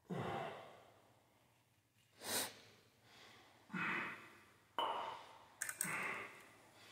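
A man breathing hard through a set of kettlebell delt flies, with about five separate exhales spaced a second or two apart as he lifts.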